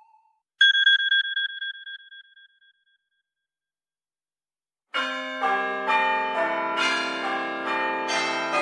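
A wavering electronic tone dies away at the start. Under a second in, a high bell-like chime strikes a few times in quick succession and rings out over about two seconds. After about two seconds of silence, an iPhone ringtone of pealing church bells begins, with many bell pitches ringing over one another.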